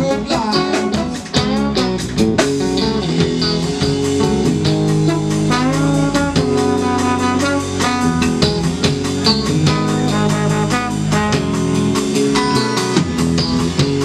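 Live band playing an instrumental passage: trombone with sliding notes over electric guitar, bass guitar and a drum kit keeping a steady beat.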